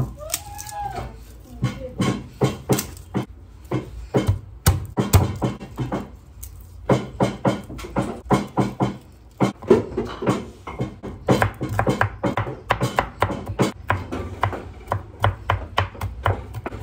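Background music with a steady percussive beat.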